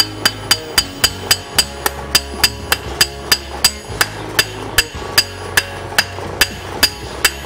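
Hammer blows on a red-hot steel fishing-spoon blank lying on an anvil, struck at an even rhythm of nearly four a second, each with a bright ring. Background music plays underneath.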